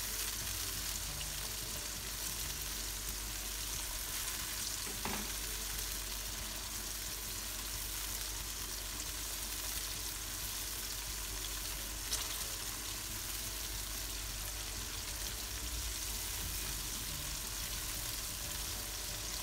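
Whole red chillies frying in oil in a granite-coated wok, a steady sizzle, as they are fried until half-cooked and stirred with a spatula. Two light knocks, about five seconds in and again near twelve seconds.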